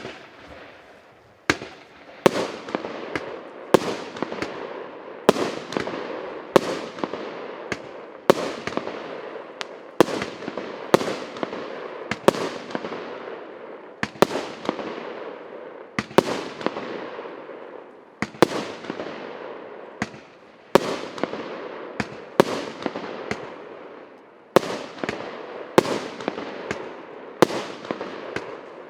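A 99-shot consumer firework cake of 1.25-inch calibre firing shot after shot, a sharp bang about once a second, each trailing off in a fading hiss.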